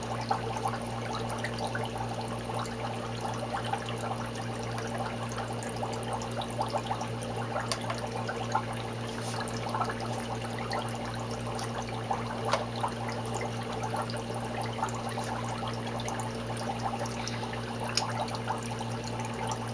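Water trickling steadily in a reef pond and its algae scrubber, over a steady low hum. Small drips and splashes come as wet algae is pulled off the scrubber by hand and squeezed.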